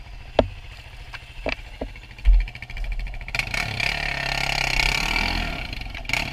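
Quad ATV engine ticking over, with a few sharp knocks and a heavy thump as the quad works over rocks. Then, about three seconds in, it revs up and runs hard under load.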